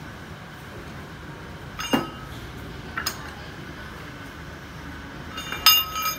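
Metal tools and parts clinking during a tyre change: single sharp clinks about two and three seconds in, then a louder cluster of clanks with a brief ring near the end.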